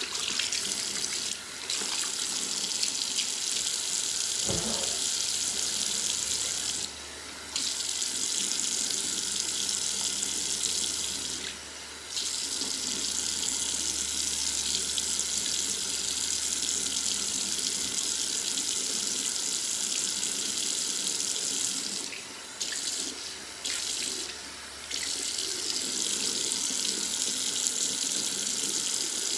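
Bathroom sink faucet running steadily as a face is rinsed, its sound dropping away briefly about six times.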